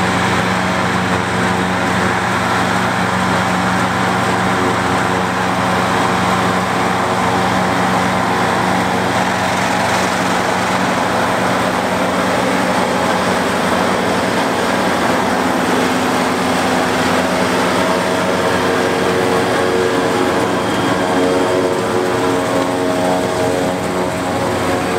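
White 195 Workhorse tractor's diesel engine running steadily under load, powering a New Holland FP230 pull-type forage harvester that is chopping alfalfa and blowing it into the wagon.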